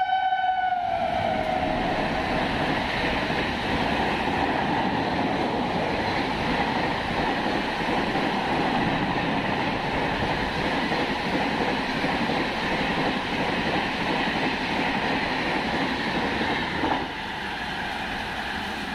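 Indian Railways electric locomotive hauling LHB coaches through a station at high speed. Its horn ends with a slight drop in pitch about a second in, then the steady loud rush of the coaches running past. The sound drops to a quieter steady noise near the end.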